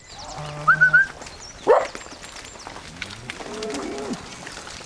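Herd of Holstein dairy cows being driven along a lane, with low lowing calls from the cows and short bird chirps over them. One short, loud rising call just before two seconds in stands out above the rest.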